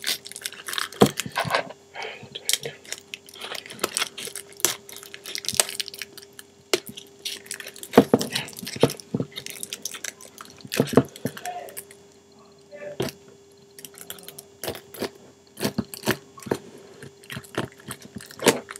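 Plastic shrink wrap being torn and crinkled off a DVD box set, with irregular crackles and snaps. A faint steady hum runs underneath.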